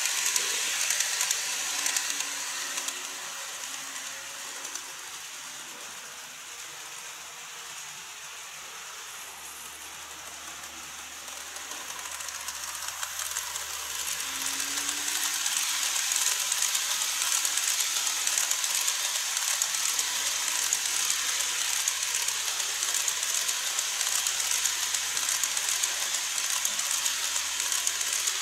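Model trains running on the layout's track: the wheel and motor noise of the departing 813 series EMU model, a steady high hiss, fades over the first few seconds, then the next train's noise grows from about halfway through and stays loud as the blue 14 series coaches pass close by.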